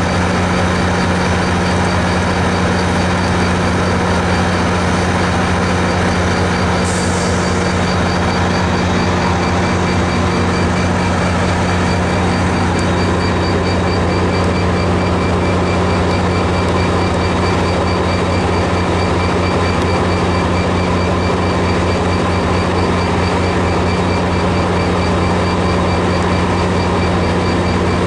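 MARC MP36PH-3C diesel-electric locomotive's EMD 16-645 diesel engine running steadily with a deep, even hum, close up, with a short hiss of air about seven seconds in.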